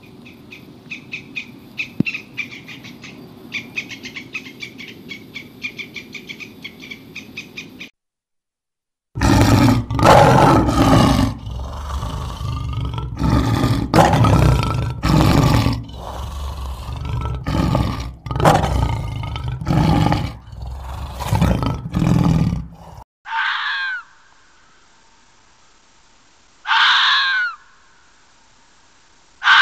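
A gray squirrel's fast, faint clicking as it eats. After a short gap, an African lion roars in a series of about a dozen loud, deep roars and grunts. After that come three short high calls, each falling in pitch.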